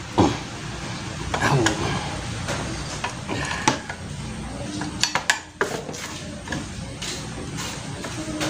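Metal tools clinking and clattering against the scooter's cylinder head while the bolts of the valve cover are undone, a few sharp clicks scattered through.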